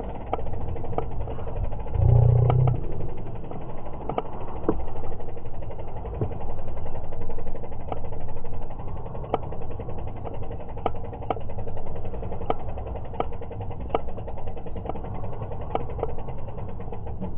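Wind and road noise from riding a bicycle, picked up by a bike-mounted camera, with a click repeating a little more than once a second. A louder low rumble comes about two seconds in.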